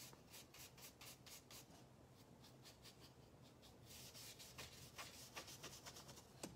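Faint brushing of a wide paintbrush working paint onto a canvas: quick scratchy strokes of the bristles, about four a second, coming thicker from about four seconds in.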